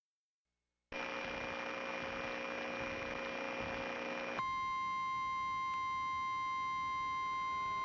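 Electronic hiss with a faint steady hum. About four seconds in it gives way to a steady, unbroken electronic tone near 1 kHz with many higher overtones.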